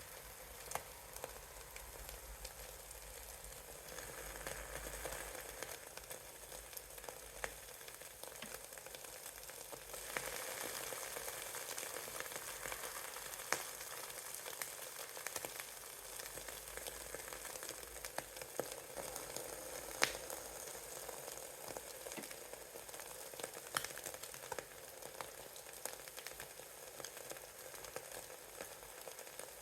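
Eggs frying in a pan: a steady sizzle with frequent small pops and crackles, a little louder from about ten seconds in.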